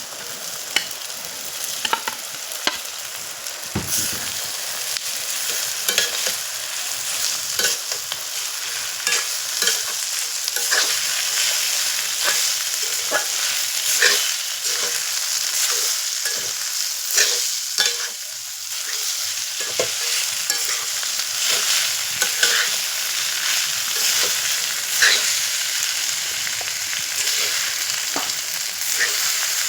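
Chira (flattened rice) frying in a pan as it is stirred: a steady sizzle broken by frequent sharp clicks and scrapes.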